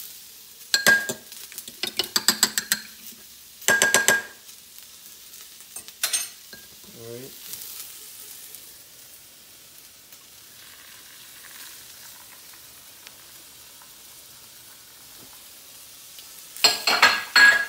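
A metal spatula scraping and clanking against a wok in short bursts as vegetables are stirred, over a faint steady sizzle of frying. The clatter comes in several quick bursts over the first few seconds, once more at about six seconds, and in a longer burst near the end.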